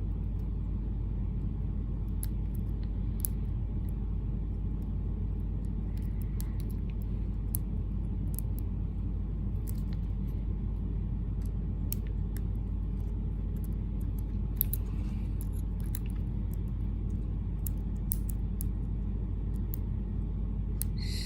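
A steady low rumble, with faint scattered metallic clicks from a lock pick working the security pins of a Federal 730 padlock held in a slight false set.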